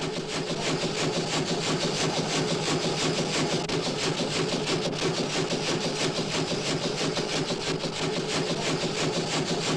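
1910 Foden showman's steam traction engine chugging slowly downhill: a steady, fast, regular chuffing and clanking beat.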